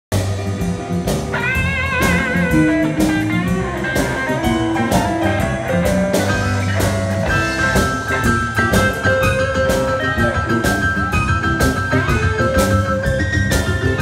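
Live band playing a slow blues, with a drum kit keeping a steady beat under electric guitar and long held lead notes with vibrato.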